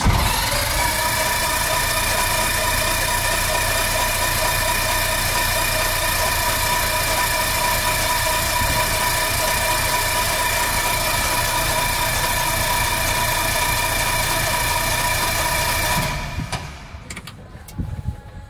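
Freshly overhauled Lycoming O-360 being turned over by its electric starter in one long continuous crank to pre-oil the engine, a steady whine that picks up speed in the first moment. It stops suddenly about two seconds before the end, and a few faint knocks follow.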